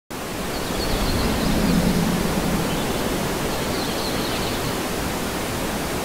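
Steady rushing of the Kisuma waterfall, water cascading over rock into a pool, as an even, constant roar.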